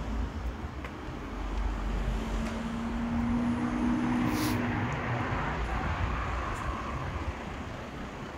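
A car driving past in the street, its engine hum swelling over a few seconds in the middle and then fading, over steady street traffic noise.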